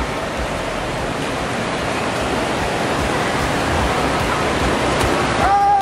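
Steady rushing-water din of an indoor waterpark pool, an even wash of noise with no single event standing out.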